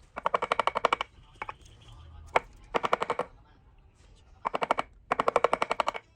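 Repeated bursts of rapid, evenly spaced tapping from a woodworking tool striking wood, about a dozen strikes a second, each burst up to about a second long, with a couple of single sharp knocks between bursts.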